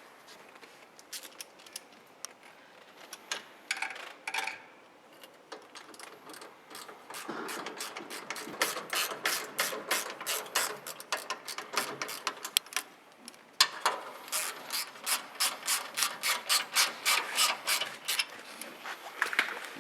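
Mechanical clicking from a hand tool being worked in a car workshop. After a few scattered clicks, it settles from about seven seconds in into long even runs of about four clicks a second. It pauses briefly just before the last and loudest run.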